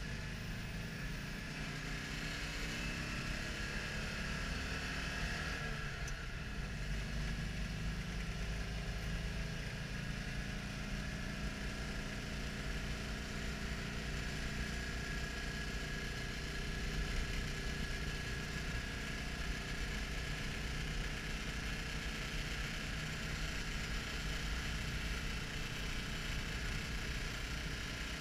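Citroën Dyane 6's small air-cooled flat-twin engine running as the car drives along, heard from inside the cabin. The engine note climbs over the first few seconds, then holds steady at cruising speed.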